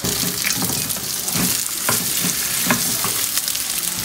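Egg-battered jeon sizzling in oil in a frying pan, with a steady hiss, while a slotted spatula scrapes and taps against the pan several times as the pieces are turned.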